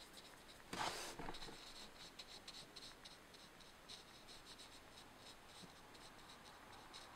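Faint scratching of a drawing tool on sketchbook paper in short, repeated strokes, with one louder rustle about a second in.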